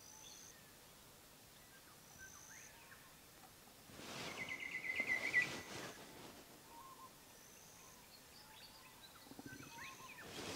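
Faint birdsong: scattered chirps and a short high whistle that comes back every few seconds. About four seconds in comes a louder quick run of chirps, slightly rising, lasting a second or two over a scratchy rustle.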